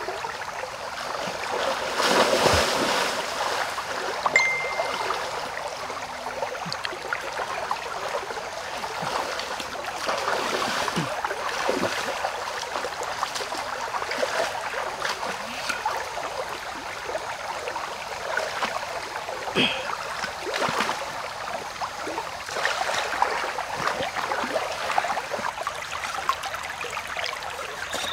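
Shallow stream running steadily, with water splashing as a person wades through it; the splashes come in several swells, the loudest about two seconds in.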